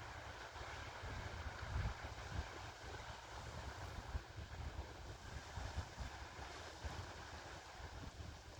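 Sea waves washing onto the shore as a steady rushing hiss, with wind buffeting the microphone in irregular low thumps.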